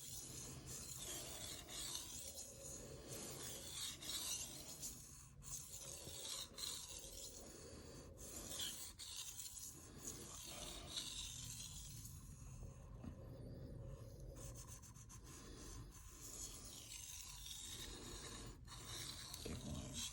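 Knife blade stroked across a Shapton Rockstar 1000 whetstone, a faint scraping repeated stroke after stroke with short pauses between. These are light finishing strokes that wear the burr down at the edge.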